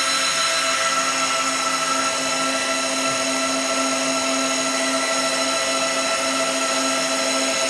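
A machine running steadily: a constant whine made of several steady tones over an even hiss, unchanging throughout.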